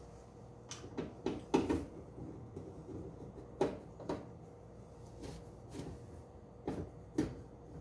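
Amana PTAC air conditioner's metal housing and panels being handled and fitted back into place: a series of separate knocks and clunks, several coming in pairs about half a second apart.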